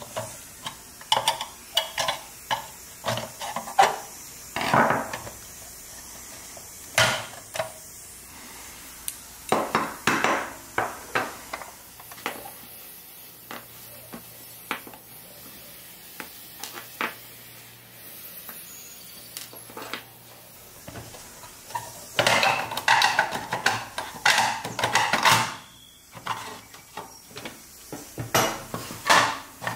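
Pressed-steel Tonka toy truck parts being handled and pried apart with a tool on a workbench: irregular metal clinks and knocks, with a denser stretch of clattering about three-quarters of the way through.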